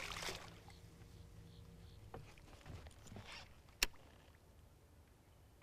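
Faint handling noises with a low steady hum that fades about two seconds in, then one sharp knock just before four seconds.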